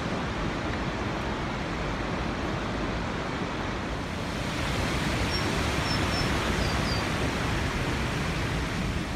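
Steady rush of a fast mountain river, an even roar that gets a little louder about five seconds in. A few short, high bird chirps come through between about five and seven seconds in.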